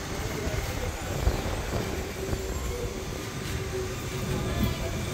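Petrol being pumped through a forecourt dispenser nozzle into a car's fuel tank, over a steady low rumble, with a faint steady hum in the middle.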